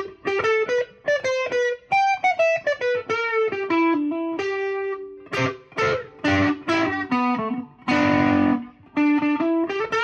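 Fender Vintera '70s Telecaster Custom electric guitar in the middle pickup position, with the Fralin high-output bridge single-coil and the Cunife wide-range neck humbucker combined, played through a Boss Katana's crunch channel. It plays a line of quickly picked single notes and double-stops, with a strummed chord about eight seconds in. The two pickups sound in phase and hum-cancelling together.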